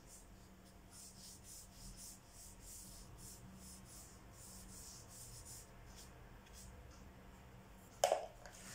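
Watercolour brush strokes on paper: faint, repeated soft brushing. Near the end, one short knock.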